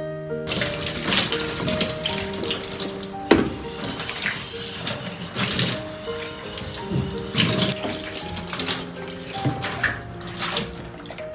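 Water running from a tap and splashing irregularly, with one sharp knock about three seconds in, over soft background music.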